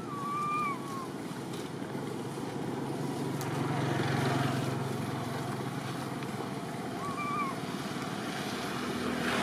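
Infant long-tailed macaque giving two short, slightly wavering coo calls: one right at the start and another about seven seconds in. Beneath them is a steady low rumble, as of road traffic, that swells in the middle.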